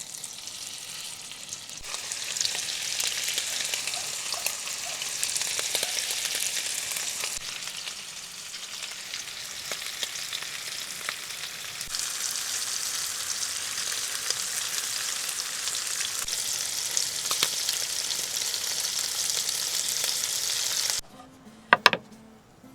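Food frying in a pan, a steady crackling sizzle that cuts off suddenly near the end, followed by two sharp clicks.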